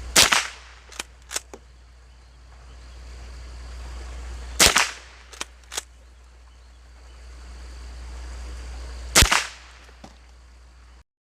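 .22 rimfire gunshots: three single shots about four and a half seconds apart, each followed by one or two faint, short clicks. A steady low rumble runs underneath.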